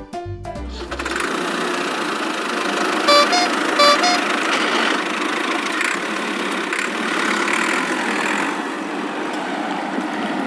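Cartoon vehicle engine sound effect running steadily, with two short horn beeps about three and four seconds in.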